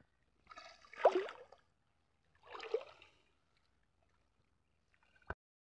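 Water splashing and sloshing as hands grope through shallow, weed-choked water, in two short bouts about a second and a half apart. A single sharp click near the end.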